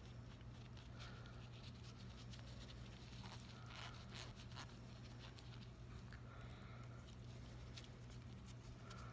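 Near silence: a steady low hum, with faint rubbing, rustling and small clicks, loudest around the middle, from gloved hands scrubbing an implanted port's IV needle connector with an alcohol swab.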